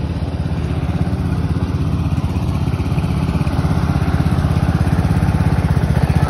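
Craftsman riding lawn tractor engine running with a fast, even pulse, growing steadily louder as the tractor drives toward the microphone.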